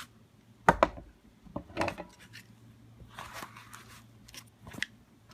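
Handling noise of pistols and a cloth holster: a sharp knock about 0.7 s in, then a few lighter clicks and knocks with a short scraping rustle in the middle.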